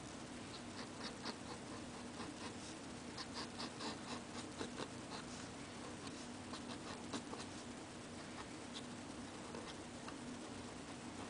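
Nib of a circa-1955 Onoto fountain pen scratching across paper in short, quick strokes that come in irregular clusters, over a steady low hum.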